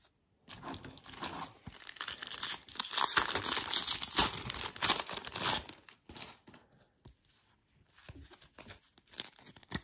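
A foil trading-card pack being torn open and crinkled by hand for about five seconds, then fainter rustling and clicks as the stack of cards is pulled out and handled.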